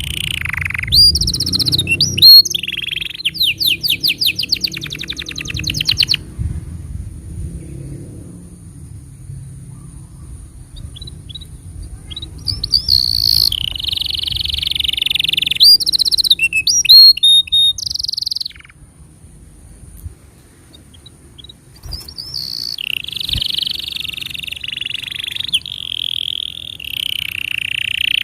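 Domestic canary singing a master song for teaching young canaries. It sings in phrases of whistled trills and fast rolls of quickly repeated notes, with lulls of a few seconds between song bursts. A low hum runs underneath in the first part.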